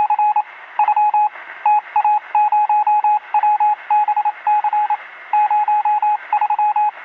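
Morse code beeping: one steady tone keyed on and off in quick groups of short dots and longer dashes, over a light hiss, with a thin, radio-like sound.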